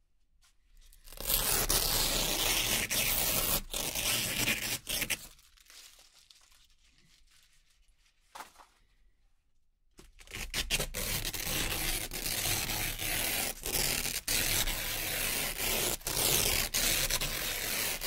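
Velcro hook-and-loop strips being peeled off a Velcro board: a ripping tear lasting about four seconds, a pause with one brief rip, then a second long tear from about halfway through to the end.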